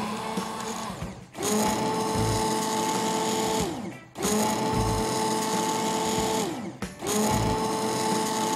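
Hand-held immersion blender pureeing chunky soup of roasted tomatoes and bread in a pot. The motor runs in four pulses with a steady whine: a short, quieter one at the start, then three longer ones of a couple of seconds each. Each pulse spins up at its start and winds down when it stops.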